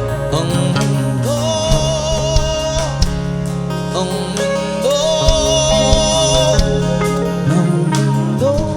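A live band playing a song, recorded straight from the mixing desk: drums, bass and guitars under a melody of held notes that bend up into pitch and waver.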